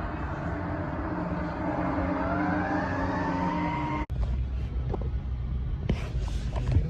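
Fire truck siren sweeping up in pitch over steady tones and a low engine rumble. It cuts off abruptly about four seconds in, leaving a low vehicle rumble with a few knocks.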